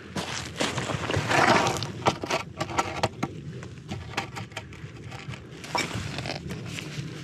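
Crunching and scraping with a run of sharp clicks and knocks; the loudest scrape comes about a second in.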